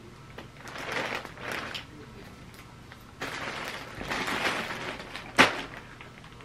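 Soft rustling and shuffling handling noises as someone moves about close to the microphone, with one sharp click or tap about five seconds in, the loudest sound.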